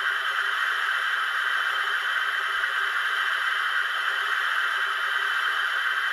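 Water-fill sound effect from the DCC steam sound decoder in a Bachmann Fairburn 2-6-4 tank model locomotive: a steady rushing hiss of water being taken on, played through the model's speaker.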